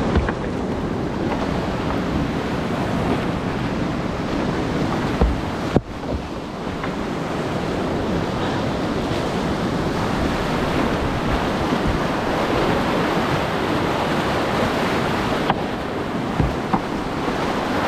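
Steady rush of whitewater rapids heard from a kayak running them, with a few short, sharp splashes of water hitting the kayak and the camera.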